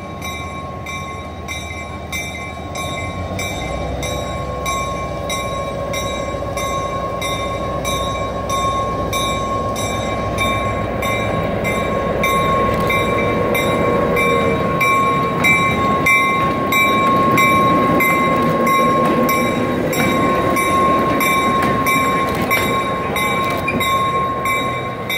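Diesel switcher locomotive running by at low speed, its engine rumble growing louder as it approaches, loudest as it passes and easing near the end. Over it the locomotive's bell rings steadily in a regular rhythm of about one and a half strokes a second.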